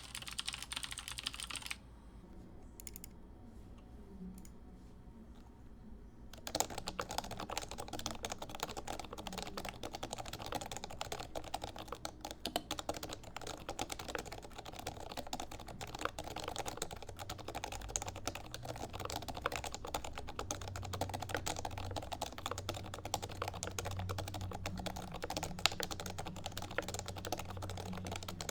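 Typing on a Topre keyboard, a Noxary XRF case built around Realforce 87U internals with Deskey pink domes and sliders lubed with Krytox 205g0. A short burst of keystrokes comes first, then a pause with only a few single key presses. Steady fast typing starts about six seconds in and carries on.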